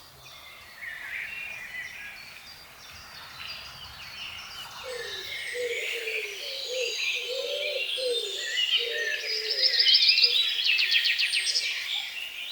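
Songbirds singing and chirping, with a run of low, repeated notes starting about five seconds in and a fast trill near the end, which is the loudest part.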